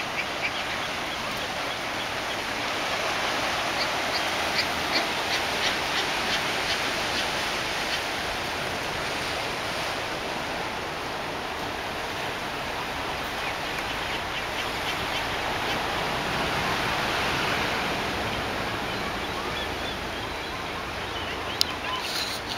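California sea lions barking in short repeated calls over steady surf washing on the rocks, the barks clustered in a run a few seconds in. A few sharp clicks near the end.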